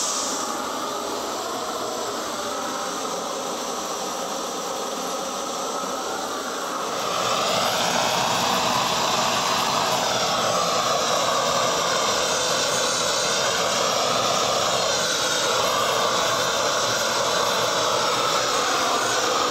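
Hand-held propane torch burner running with a steady rushing noise, louder from about seven seconds in.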